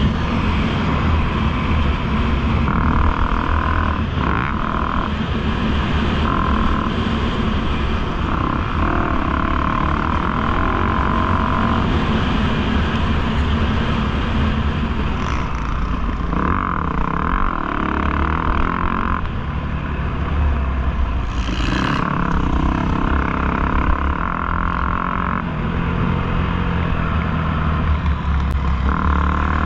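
Dirt bike engine being ridden hard on a motocross track, its note rising and dropping every few seconds as the throttle is opened and shut, over a constant low rumble.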